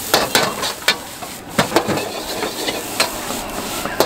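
Steel ladle clanking and scraping against an iron wok during stir-frying, in irregular sharp strikes, over the steady sizzle of the frying food and the hiss of the gas burner.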